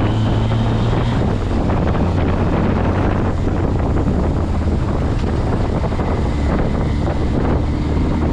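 Motorcycle under way: the engine running steadily under heavy wind rush on the microphone.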